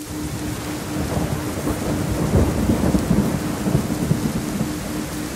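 Steady rain falling, with a roll of thunder that swells about a second in, rumbles loudest in the middle and fades away near the end. Under the rain, a faint tone pulses about four times a second: a theta-frequency pulse.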